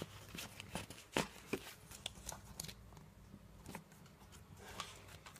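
Faint rustling and light taps from a folded paper DVD insert and its case being handled, the sharpest tap about a second in.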